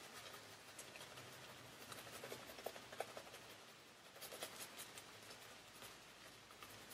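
Shaving brush working lather over stubbly skin: faint, soft scratching and crackling of bristles and foam in short, irregular strokes, busiest a couple of seconds in and again past the middle.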